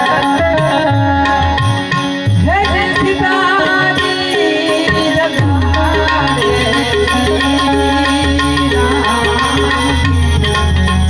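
Harmonium playing a devotional melody over steady tabla strokes, an instrumental passage of a Gujarati prabhatiyu.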